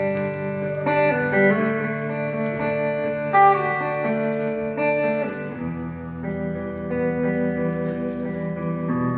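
Live instrumental guitar music: a hollow-body electric guitar with an acoustic guitar playing held chords and single notes that change every second or so, without singing.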